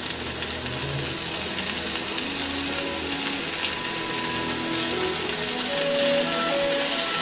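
Carrot, potato and green bean pieces sizzling in hot oil in a non-stick frying pan, with a steady frying hiss. A wooden spatula stirs them near the end.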